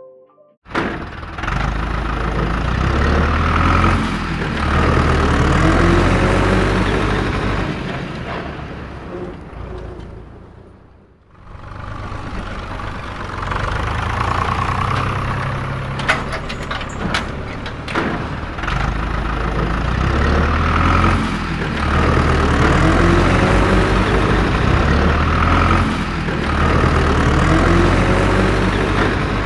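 Tractor engine sound running and revving up and down. It fades out about eleven seconds in and picks up again a second later, with a few sharp clicks near the middle.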